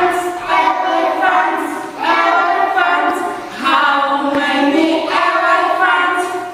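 A group of voices singing a song together, unaccompanied, in phrases of a second or two.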